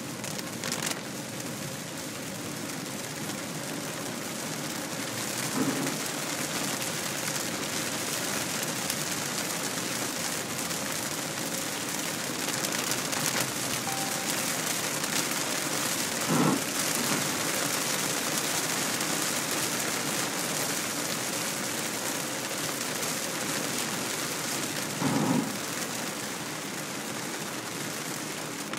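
Heavy rain drumming steadily on a car's roof and windscreen, heard from inside the car, with three brief thuds spread through it.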